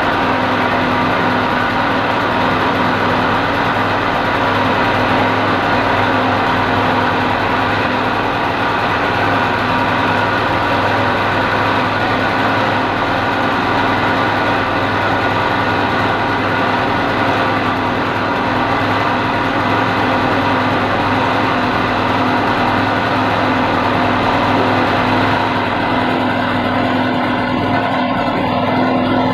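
Engine of road-construction machinery running steadily at constant speed, a continuous hum with several steady tones. The hiss in the highest range thins out in the last few seconds.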